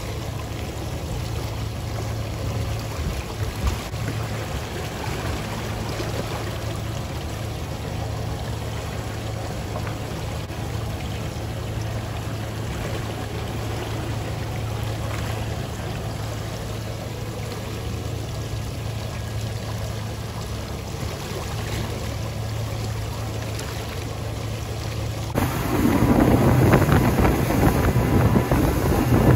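Boat engine running with a steady low drone over wash noise. About 25 seconds in it turns abruptly louder, the boat underway with wind buffeting the microphone.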